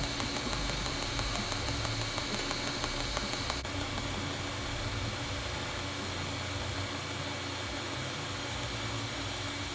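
TIG welding arc on steel, a steady hiss, as the high-carbon steel strip is welded to the stainless cleaver body with 309 filler rod.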